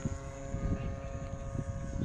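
DLE 20cc single-cylinder two-stroke gasoline engine of a radio-controlled model airplane running steadily in flight, heard as a steady drone, with gusty wind rumble on the microphone.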